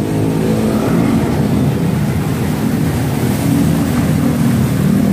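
A motor vehicle's engine running close by in street traffic, its pitch rising a little in the second half.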